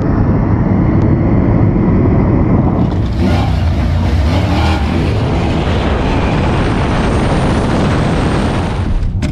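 Road and wind noise of a car running down a drag strip at speed, then, about three seconds in, a Fox-body Ford Mustang on drag radials launching hard off the start line at full throttle.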